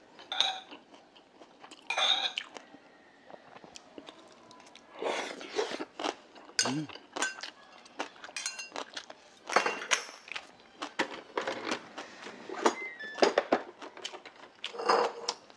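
Close-up eating sounds: chewing of grilled eel and rice, with metal chopsticks clicking and scraping against a brass rice bowl held up to the mouth, in many short taps and brief clinks.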